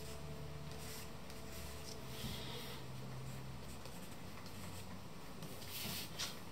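Charcoal stick scratching and rubbing on drawing paper in a few short strokes, over a faint low steady hum. Near the end comes a louder papery rustle as the sheet is shifted on the desk.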